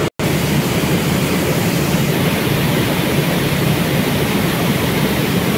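Rice mill machinery running: a steady, loud mechanical din with a low hum, which cuts out for a moment at the very start.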